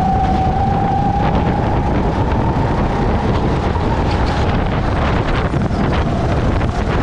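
Onboard sound of a racing kart at speed: its engine running with a steady high whine that rises slightly about a second in and then eases, under heavy wind noise on the microphone.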